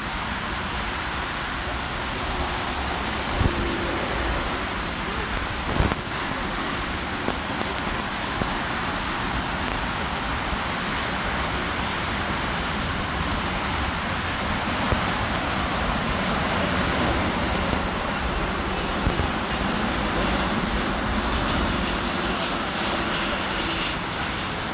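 Four-engine Airbus A340 airliner on final approach: a steady jet rumble and rush that swells slightly as it passes closest. Two brief knocks sound in the first six seconds.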